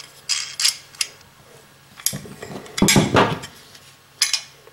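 Metal parts and hand tools being handled: a handful of separate clinks and knocks as an aluminium bracket with an air manifold and wrenches are picked up and set down, the loudest a clatter about three seconds in.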